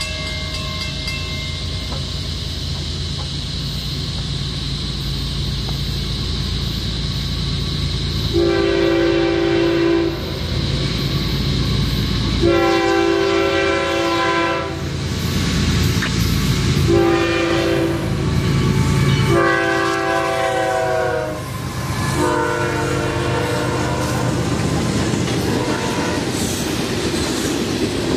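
Florida East Coast Railway diesel freight train passing, its multi-chime horn sounding a series of blasts in the long, long, short, long grade-crossing pattern, the pitch dropping as the locomotive goes by. Under it the locomotive engine rumbles steadily and the wheels clack over the rail joints.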